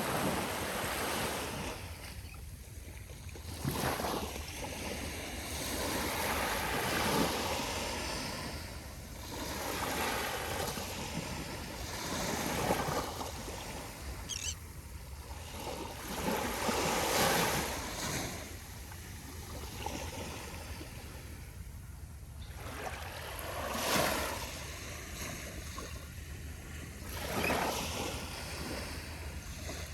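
Small ocean waves lapping and breaking on a beach on very calm, glassy water. The surf swells and fades every few seconds, with a brief high chirp about halfway through.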